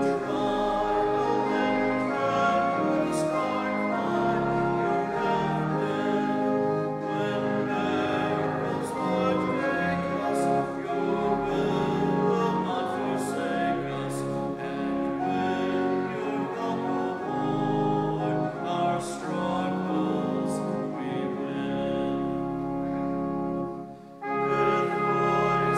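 A hymn being played on an organ in sustained chords, with the congregation singing along. The music breaks off briefly near the end, then starts again on a new chord.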